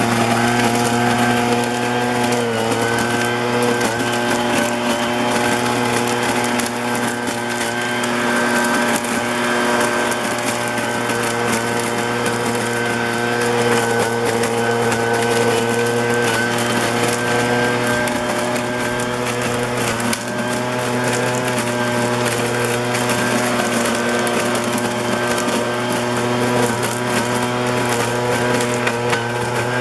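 Street vacuum sweeper running steadily while sucking up street debris: a constant engine and suction-fan hum with a whine that drifts slightly in pitch, over rushing noise.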